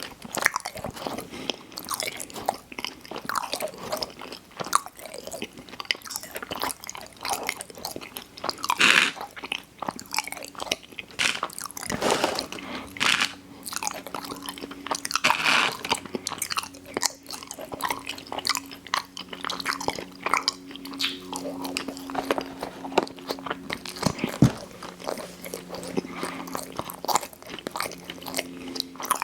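Close-miked eating of sweets: repeated crunchy bites and chewing, with a few louder crunches along the way.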